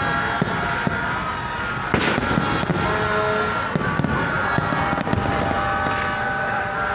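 Aerial fireworks bursting in a run of sharp bangs and crackles, the biggest bang about two seconds in, with steady high tones sounding underneath.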